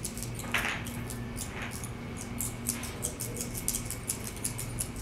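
Elastic bait thread being wound tight around a foam float on a J-hook: quick, faint scratchy ticks and a couple of short squeaks as the thread rubs and drags across the foam, over a steady low hum.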